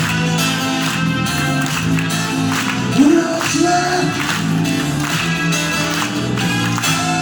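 Song music with a steady beat playing on without lyrics, the instrumental close of the song, with a short gliding vocal note about three seconds in.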